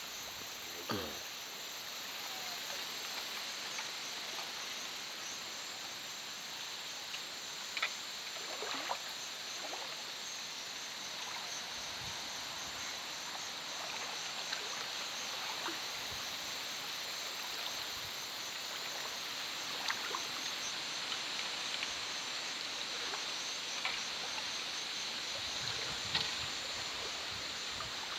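Night ambience at a river: a steady chorus of insects with the running water of the stream beneath it, broken by a few faint knocks or splashes.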